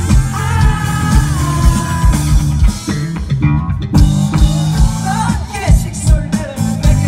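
A rock band playing live: a singer's voice over a steady drum beat and deep low notes, with the sung line strongest in the first couple of seconds and again a little past the middle.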